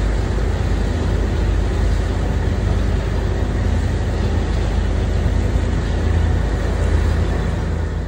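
Motorboat under way: a steady low engine drone under the rush of water past the hull.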